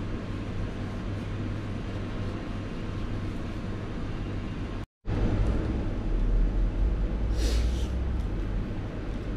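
Steady low background rumble, which cuts out for a moment about five seconds in and comes back louder. A brief hiss sounds about seven and a half seconds in.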